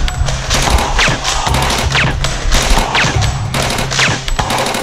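Rapid bursts of automatic gunfire sound effects laid over the blaster's shots, with background music's steady bass underneath.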